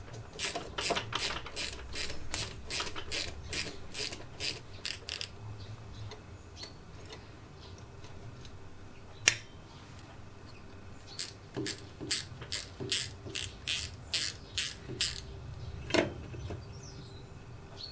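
Socket ratchet clicking in quick runs of about three clicks a second, twice, with a lone click between, as it slackens the locking nuts on a ride-on mower's brake assembly.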